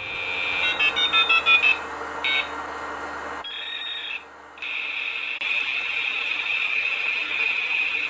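Synthesized electronic sound effect: a quick run of stepped beep tones in the first two seconds, then after a short break a steady high-pitched buzzing hiss.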